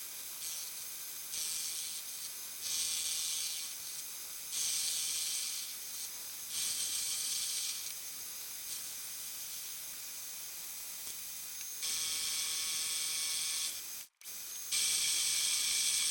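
Small metal lathe turning steel stock, the cutting tool hissing through the metal in short cuts about a second long, repeated every couple of seconds, then two longer cuts near the end.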